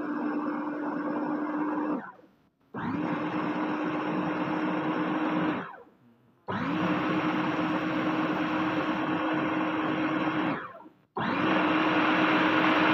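Electric mini food chopper whirring as it blends a runny flour, egg and coconut-milk batter. It runs in pulses of three to four seconds, stopping briefly about two, six and ten and a half seconds in, then starting again each time.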